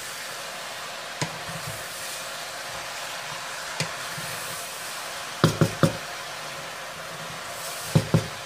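Wooden spatula stirring pork and pig ears in a stainless steel pot, knocking against the pot: single knocks about a second and about four seconds in, three quick knocks about five and a half seconds in, and two near the end. A steady hiss runs underneath.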